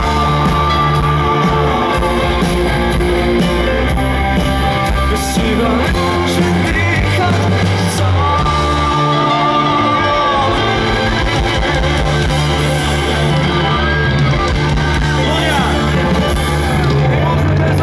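Rock band playing live at full volume: electric guitars, bass and drums, with a lead line of long held notes and pitch bends near the end.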